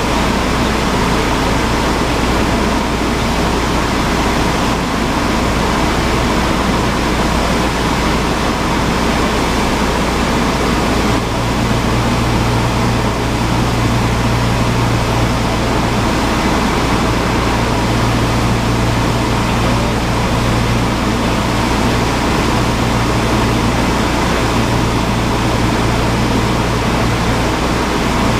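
Cessna 172's piston engine and propeller droning steadily inside the cabin, a loud even rush with a low hum. About eleven seconds in a deeper steady tone comes up and holds, as the engine note changes.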